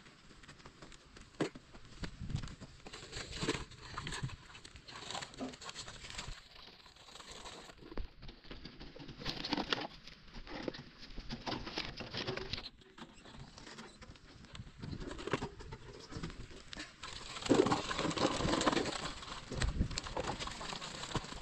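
A plastic toy dump truck scraping and knocking against dirt and stones, with irregular clicks and short scrapes and a child's footsteps on gravel. The scraping gets louder and denser near the end.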